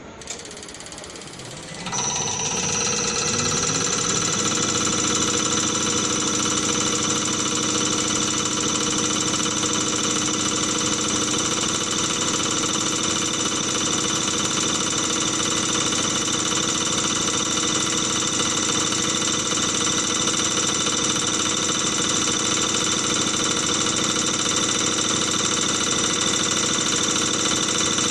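CRS708D common rail test bench's drive motor spins up the mounted high-pressure diesel pump about two seconds in, rising in pitch for a couple of seconds, then runs at a steady test speed with a high whine.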